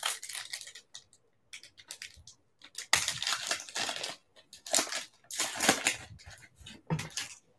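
Foil wrapper of a 2016-17 Panini Complete basketball card pack being torn open and crinkled by hand, in several short bursts of rustling.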